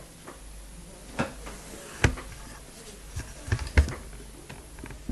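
Handling noise: a few sharp clicks and taps, the loudest about two seconds in and a quick cluster near four seconds.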